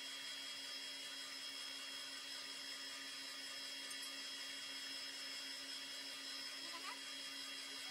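Electric stand mixer running steadily, whipping egg whites for meringue: an even motor hum with a constant high tone over it.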